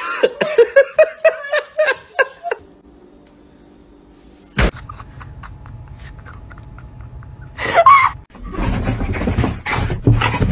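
A person laughing in quick, repeated bursts for about two and a half seconds. Then comes a quieter stretch with one sharp knock, and a loud outburst near the end.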